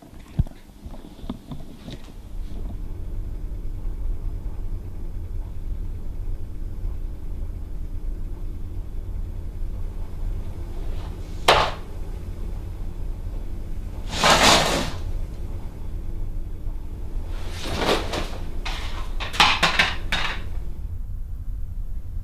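A steady low hum with sudden household knocks and clatters: one sharp knock about halfway through, a longer rattling clatter shortly after, and a quick run of several bangs near the end.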